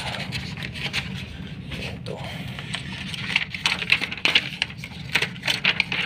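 Papers rustling in a hand, with short clicks and rattles as a key card goes into a door's key-card lock and the lever handle is worked, over a steady low hum. The clicks come thickest in the second half.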